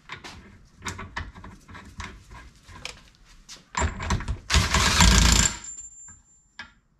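Small metal clicks and knocks as steel shims and tools are handled. About four seconds in comes a loud burst of a compressed-air tool, which tightens the swivel's ball-joint cap down on its shim pack. A thin high whine lingers for about a second after the burst stops.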